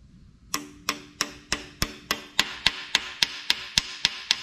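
Ball-peen hammer tapping a new Woodruff key into the keyway of a Mitsubishi 4G64 crankshaft snout: a quick, even run of light metallic taps, about three a second, starting about half a second in. A ringing hangs between the later taps.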